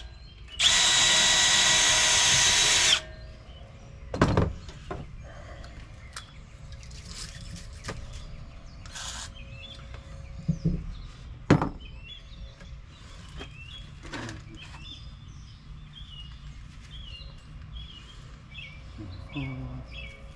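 Cordless drill-driver running steadily with a whine for about two and a half seconds, then stopping. Scattered knocks and clinks follow, with small birds chirping again and again in the background.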